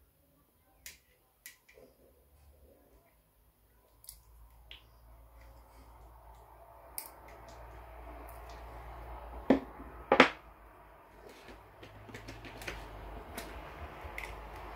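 Sharp small clicks and rustling from hands handling fishing line, a clear plastic spool case and steel nippers, with two louder snaps about two-thirds of the way in.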